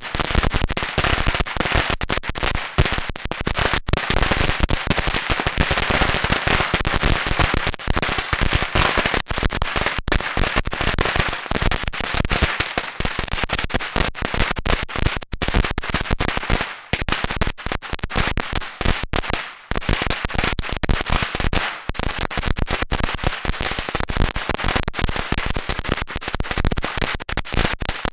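A long strip of Black Cat firecrackers going off one after another in a dense, unbroken crackle of bangs, with a couple of brief lulls.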